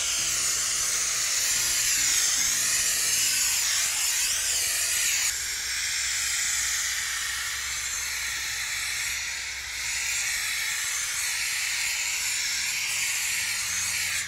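Handheld steamer jetting steam in a steady, loud hiss that dips slightly twice and cuts off at the end.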